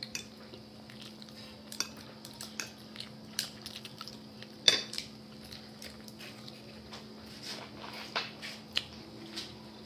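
A metal fork clinking and scraping on a plate, with scattered chewing and biting sounds as someone eats rice and shellfish, over a steady low hum. One click about halfway through is the loudest.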